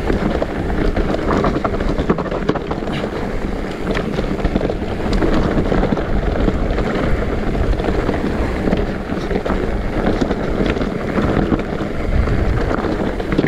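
Wind buffeting the microphone over an electric mountain bike descending a dirt trail: steady rumble of the tyres on the ground, with frequent rattles and knocks from the bike over the bumps.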